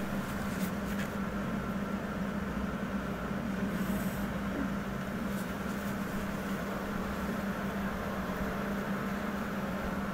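Steady low mechanical hum, one constant tone with fainter overtones, unchanging in level throughout.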